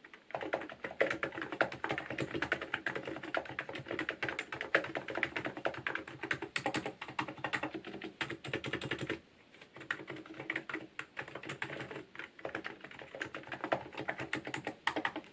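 Rapid typing on a Hansung GK888B electro-capacitive keyboard fitted with thick PBT MDA-profile Big Bone keycaps: a dense, uneven run of keystrokes, with a brief pause about nine seconds in.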